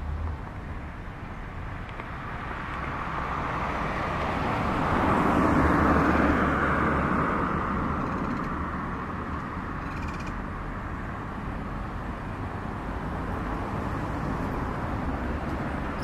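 Steady outdoor traffic noise. A passing vehicle swells to its loudest about six seconds in and slowly fades away.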